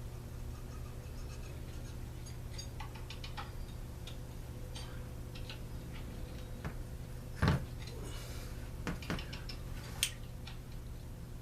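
Light clicks and taps of small metal engine parts and hand tools being handled on a workbench, with a few sharper knocks about halfway through and near the end, over a low steady hum.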